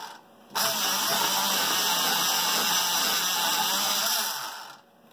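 Electric pencil sharpener sharpening a coloured pencil: it stops briefly just after the start, then runs steadily for about four seconds and stops near the end.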